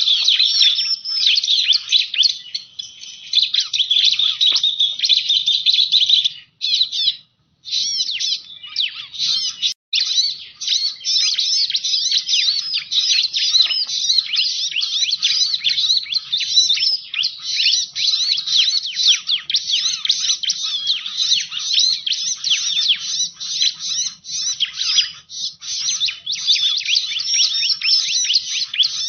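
Bar-winged prinia (ciblek) song played as a bird lure: a dense, unbroken run of rapid high chirps and trills. There is a short break about seven seconds in and a brief dropout at about ten seconds.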